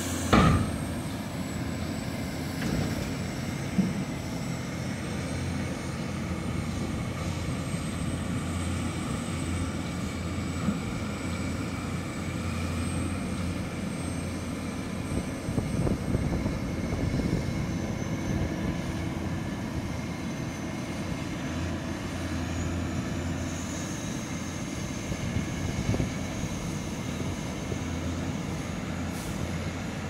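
Diesel engines of large John Deere four-wheel-drive tractors running steadily under load as they push and pack a corn silage pile with front blades. There are a couple of sharp knocks in the first few seconds.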